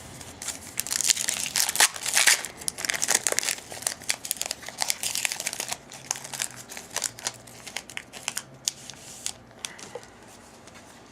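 Wrapper of a pack of football trading cards being torn open and crinkled, heaviest about one to three seconds in, then lighter crackles and ticks as the cards are handled.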